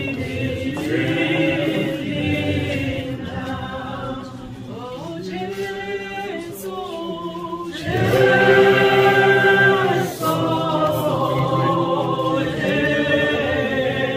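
A group of voices singing a slow hymn a cappella in harmony, with long held notes. It softens for a few seconds in the middle, then comes back louder about eight seconds in.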